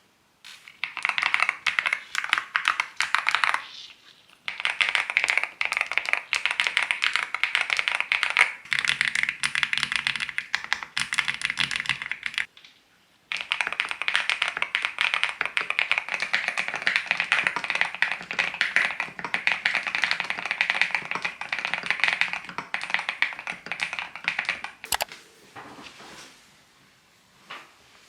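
Typing on a Groovestone M-stone GV10M-8K mechanical keyboard fitted with Coral V2 switches (45 g). Fast, continuous keystrokes come in three long runs broken by short pauses, with a single sharper click near the end.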